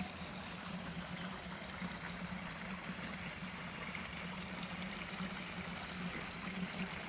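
Small garden stream flowing steadily over rocks, a continuous trickling rush of water.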